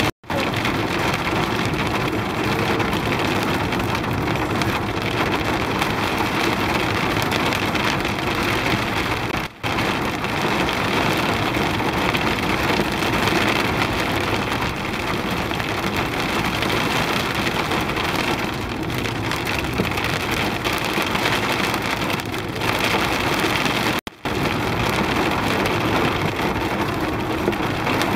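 Heavy hail and rain pelting a car's roof and windscreen, heard from inside the moving car as a dense, loud hiss. It breaks off for a moment twice, near ten and twenty-four seconds in.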